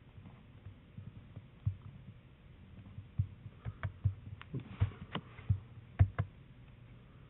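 Irregular soft thumps and clicks from handling a computer mouse and desk near the microphone, with a faint steady hum underneath; the clicks and thumps come thicker and louder from about three seconds in, the strongest about six seconds in.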